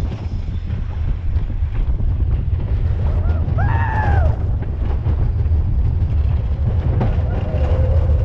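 Big Thunder Mountain Railroad mine-train roller coaster running along its track, a loud steady rumble with wind buffeting the microphone. About three and a half seconds in, a rider's voice calls out once, briefly rising and falling in pitch.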